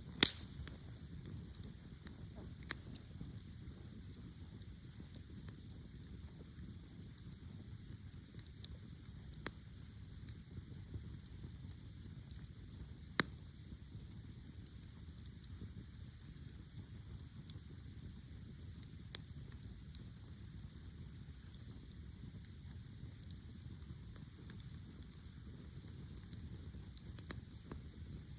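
A steady, high-pitched chorus of crickets on a warm summer night, under a low steady rumble of burning wood. A campfire gives a few sharp pops, the loudest just after the start and others now and then.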